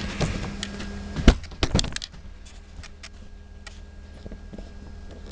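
A folded thin aluminum roaster pan being handled and unfolded: a quick run of crinkles and sharp clicks, the loudest about a second in, then sparser faint crackles.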